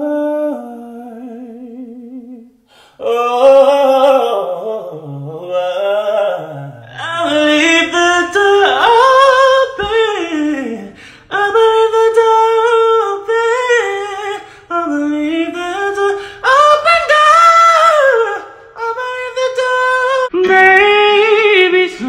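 A solo voice singing, with long held notes with vibrato and sliding runs; the singing breaks off briefly about three seconds in and again near the end as clips change.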